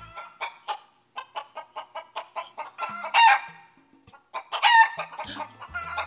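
Recorded chicken sounds: a run of quick, short clucks, then several louder, longer calls.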